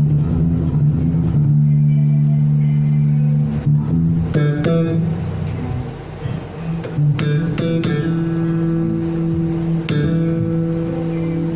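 Status S1 electric bass guitar with an Aguilar OBP-3 active preamp, played solo: long held low notes with a few sharp, bright plucked notes at about four and a half, seven and ten seconds in.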